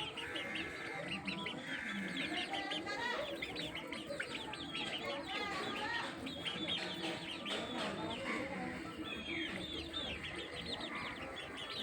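Chickens clucking with other birds calling: many short high chirps overlap in a busy, unbroken chorus.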